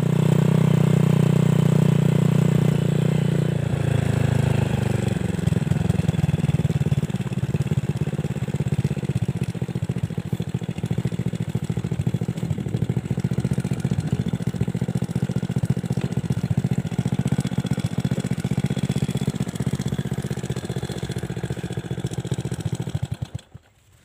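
Small motorcycle engine running as it rides along a rough dirt track, with a rattle of the ride over the bumps. Its pitch drops about four seconds in, and the sound stops abruptly just before the end.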